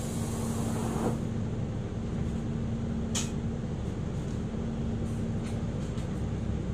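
Cabin sound of an Isuzu Erga Hybrid city bus: a steady low rumble with a constant hum, and a brief hiss about three seconds in.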